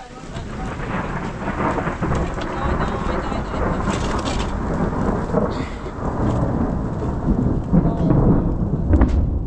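Heavy rain pouring down with a low rumble of thunder, the noise swelling in over the first second and staying loud, with the rumble strongest near the end.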